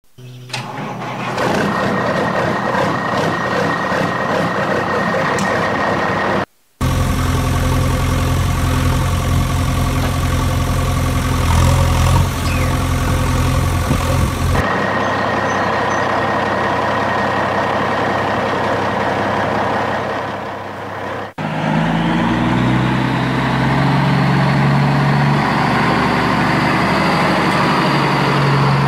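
Heavy truck engine sounds running and idling, in several clips joined with sudden cuts, each a steady engine note of its own. After the last cut the engine revs up.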